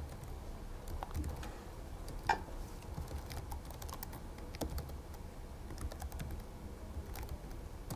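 Typing on a laptop keyboard: irregular key clicks, with two louder taps about two and four and a half seconds in.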